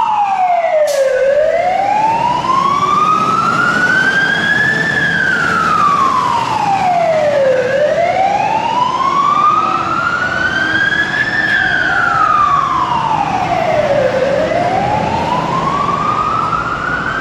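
Australian fire truck siren on a slow wail, its pitch rising over a few seconds and falling again, about two and a half cycles of roughly six and a half seconds each. A steady low rumble runs underneath.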